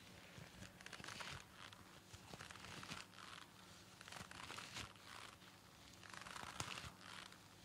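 Faint crinkling and rustling of a surgical mask being handled, a few soft rustles with fine crackle.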